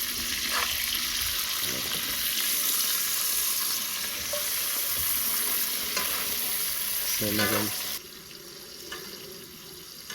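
Steak frying in butter and oil in a pan, a loud, even sizzle as it is basted with the fat. The sizzle drops away sharply about eight seconds in.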